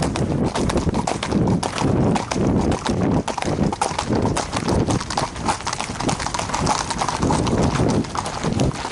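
A ridden horse's hooves clip-clopping on a paved road, a continuous run of hoofbeats as the horse moves along.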